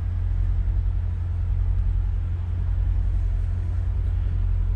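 Detroit Diesel marine engines of a large Hatteras motor yacht idling at the dock: a steady low rumble with a fine, even pulse.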